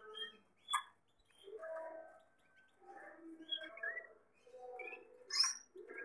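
Caged canaries chirping and twittering in short broken phrases, with two sharp clicks, one near the start and a louder one near the end.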